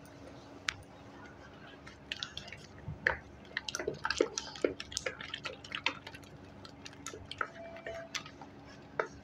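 A hand beating chilled ghee with ice in a metal bowl, rubbing it round in one direction: irregular wet squelching smacks and light clicks against the bowl, busiest in the middle. The ghee is being creamed white and fluffy.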